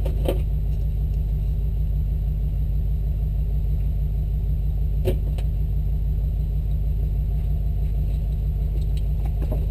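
Vehicle engine idling steadily, a deep even rumble, with a single sharp click about halfway through.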